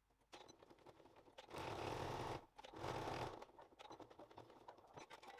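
Domestic sewing machine stitching through canvas in two short runs: one starting about a second and a half in, a brief pause, then a shorter run. Light clicks and fabric rustling around them.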